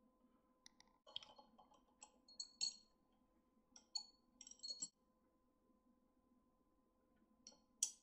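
Light metallic clicks and clinks from a metal clamp holder with ball joints being handled and adjusted. They come in short clusters, with the sharpest click near the end, over a faint steady hum.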